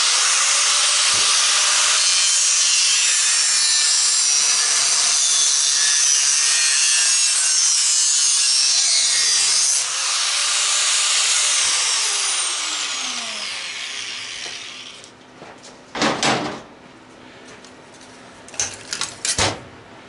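4-inch angle grinder with a worn-down cutting disc cutting through the metal housing of a garbage disposal motor for about ten seconds, then easing off and winding down, its pitch falling as it fades out. A few sharp knocks of metal near the end as the cut housing is handled.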